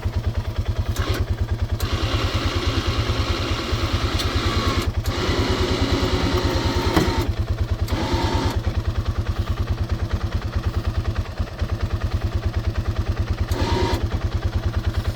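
Small engine idling steadily while an electric winch pulls a mud-stuck lawn mower, running in several stretches with short pauses between them.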